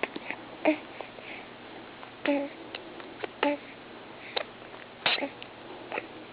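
Eating noises: a run of short smacking and chewing clicks with a few brief squeaky voiced sounds mixed in, about two seconds and three and a half seconds in.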